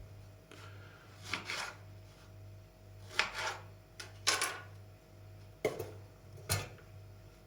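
Kitchen handling noises: a string of short knocks and scrapes of utensils and dishes over a steady low hum.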